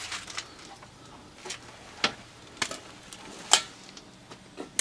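Irregular sharp clicks and knocks, about half a dozen of them, the loudest about three and a half seconds in: footsteps and handling noise from someone walking among cluttered shelves.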